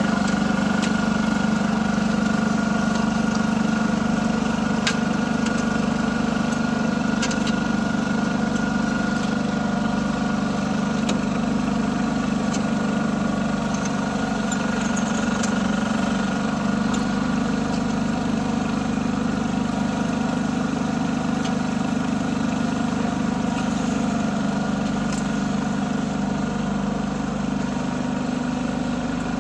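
Salsco mini asphalt paver running steadily as it lays asphalt: a constant engine hum with a steady high whine on top and a few light clicks.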